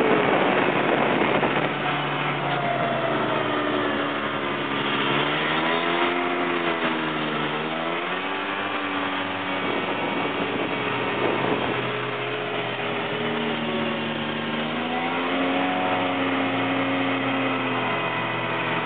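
Snowmobile engine running, its pitch rising and falling again and again as the throttle opens and eases, over a steady rushing noise.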